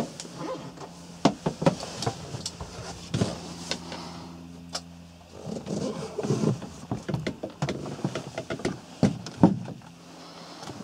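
Footsteps and handling knocks inside a narrowboat's wood-panelled cabin: irregular thuds and clicks over a steady low hum. The hum drops out about halfway through and returns near the end.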